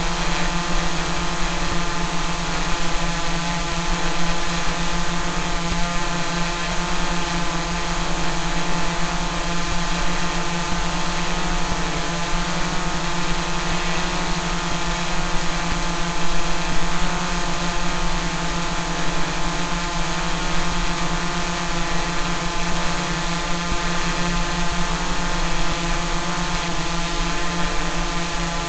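Multirotor drone's propellers and motors humming steadily at a constant pitch, as if hovering.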